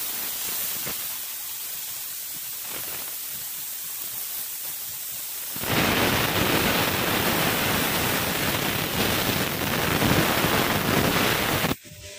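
CO2 laser cutting machine cutting through MDF board: a steady hiss from the cutting head's air assist and the machine's blowers, which gets clearly louder a little past halfway and cuts off abruptly just before the end.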